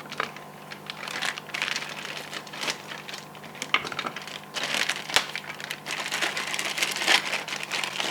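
Plastic dishwasher door-latch parts being handled and fitted together: rustling with a scatter of sharp clicks and snaps, the loudest about five seconds in.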